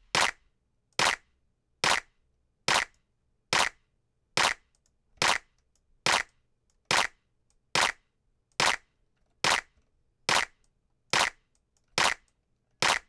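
A layered electronic clap drum sample looping about once every 0.85 s, sixteen sharp hits in all. Each hit passes through a subtle mid-side reverb with short decay that leaves a brief tail.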